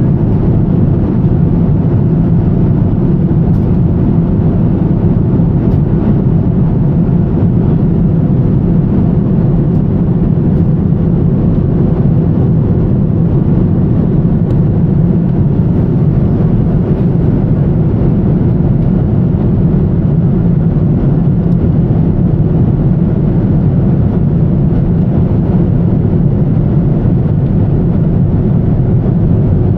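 Steady low roar of airflow and engines inside the cabin of a Boeing 787-10 Dreamliner in flight on approach.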